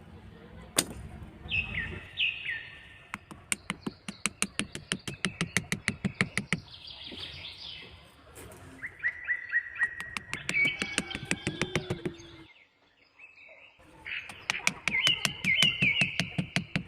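Small birds chirping in short falling calls, over runs of sharp, rapid clicks or taps, about five or six a second, that stop and start in bursts.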